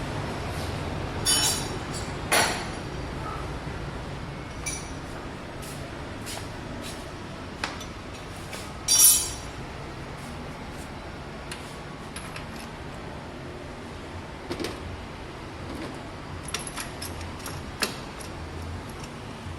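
Metal hand tools and parts clinking and tapping, with louder clinks about one and two seconds in and the sharpest one about nine seconds in, and scattered lighter ticks after that, over a steady background noise.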